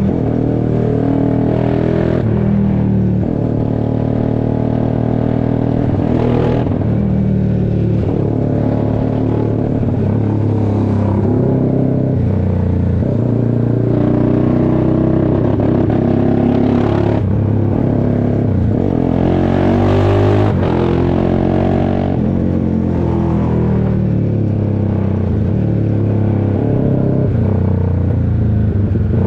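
Honda CBX 250 Twister's single-cylinder four-stroke engine, with a 79 mm big-bore kit and a custom-sized exhaust, running loud and revving up and down several times.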